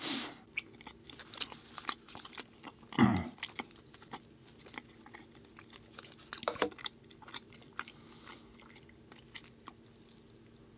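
Close-up mouth sounds of chewing and crunching dry gluten-free chocolate chip cookies with cream cheese, in scattered irregular crunches with louder bites near the start and about three seconds in.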